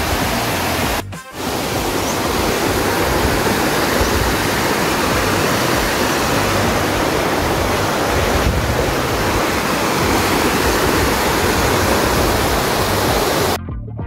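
Wind buffeting a helmet-mounted action-camera microphone while riding a motorcycle: a loud, steady rushing noise that is unevenly heavy in the low end. The noise drops out briefly about a second in and again just before the end.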